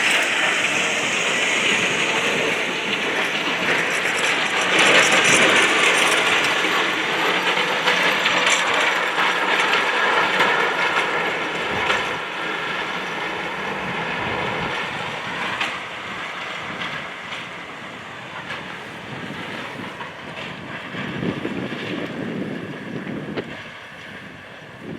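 Train passing close by, its steel wheels clattering over the rails with a faint squeal, the sound slowly fading toward the end.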